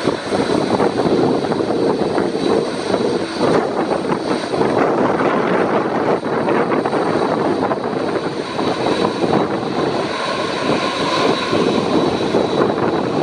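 Boeing 767-300 freighter's twin jet engines at low taxi power as the aircraft rolls close by: a steady rush with a thin, high whine running through it.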